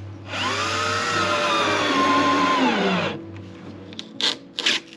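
Cordless drill running for about three seconds, its pitch sagging slightly and then dropping as the trigger is released. A few short scraping strokes follow near the end, over quiet background music.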